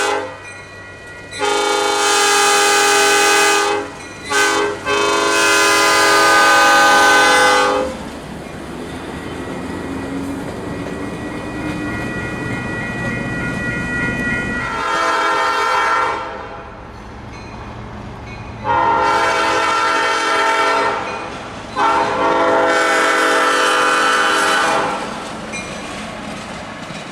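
Baldwin S12 switcher locomotive's horn sounding a series of chord blasts, long ones broken by two short toots, with a rumbling pass between them as the locomotive goes by.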